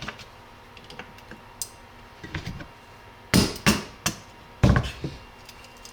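A drilling hammer striking a cat's paw chisel to chip out the plastic of a polymer airsoft lower: a few light taps, then five sharp blows in under two seconds.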